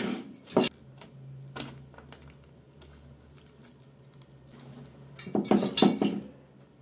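Hard plastic parts of a hair clipper clicking and clattering as its circuit board and battery are handled and pulled out of the opened plastic housing. A few separate clicks come in the first two seconds, then a quick run of clicks about five to six seconds in.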